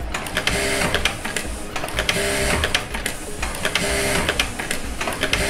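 Jack A3 computerized single-needle lockstitch sewing machine stitching through denim in several short stop-start runs. Each run is a steady motor whine with rapid needle clatter, at a top speed just raised to 4500 stitches per minute.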